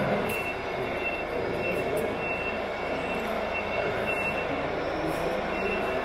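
Steady running noise of RC construction machines working a sand site, with a reversing alarm beeping about twice a second.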